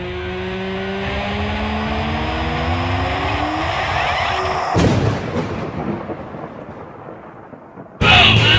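A pitched drone rises steadily in pitch and loudness, then a sudden crash cuts it off about five seconds in and trails off into a rumble. Loud rock music with yelling breaks in near the end.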